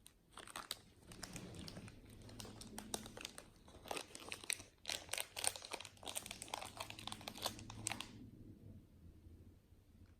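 Crinkly material being crumpled and torn: dense, irregular crackling and rustling that stops about two seconds before the end.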